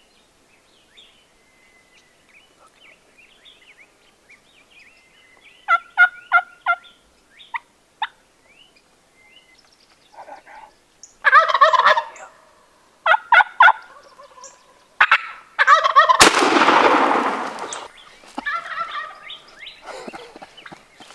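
Gould's wild turkey gobbling several times, each gobble a quick rattling burst of pulses: about six seconds in, again around eleven seconds, and then repeatedly near the end. About sixteen seconds in, a single shotgun blast cracks out and echoes for more than a second, louder than anything else.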